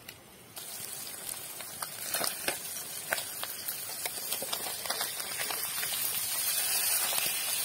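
Small masala-coated river fish frying in oil in a kadai: a steady sizzle with many sharp crackles and pops. It starts about half a second in and grows louder toward the end.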